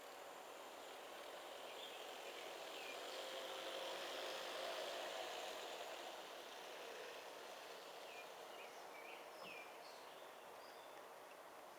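Faint rolling rumble of G-scale model freight cars on metal wheels running along the garden-railway track, swelling about midway and then easing. Birds chirp briefly several times over it.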